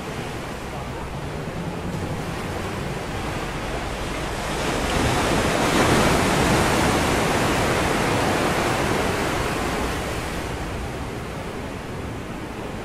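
Ocean surf breaking on a rocky shore: a wave swells up and breaks about five seconds in, and its wash fades over the next few seconds.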